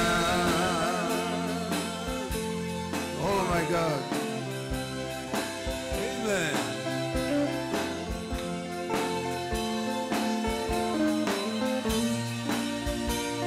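Live gospel band music: drum kit, keyboard and electric guitars playing a steady beat, with singing that wavers in vibrato near the start.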